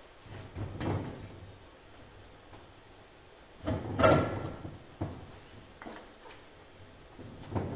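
A few clunks and scraping knocks as heavy chassis parts are moved and fitted, the loudest near the middle, with a faint metallic ring in it.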